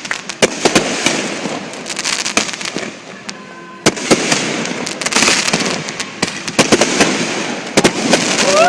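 Fireworks exploring the sky in rapid succession: many sharp bangs over continuous crackling, easing off briefly about three seconds in before a loud single bang near four seconds, then more dense bursts.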